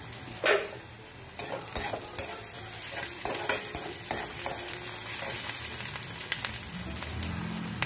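Onions, ginger, garlic and green chillies frying in oil and a spoonful of melting ghee in a metal kadhai, sizzling steadily as a metal spatula stirs them. The spatula scrapes and knocks against the pan, with a sharp knock about half a second in and more clicks and scrapes after.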